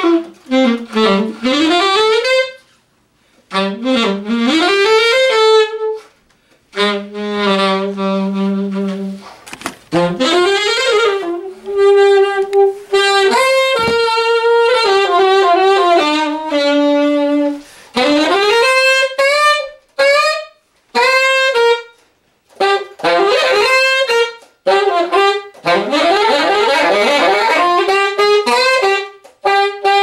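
Alto saxophone played solo in fast jazz runs, short phrases broken by brief pauses, with a held low note about seven seconds in and a few held notes in the middle.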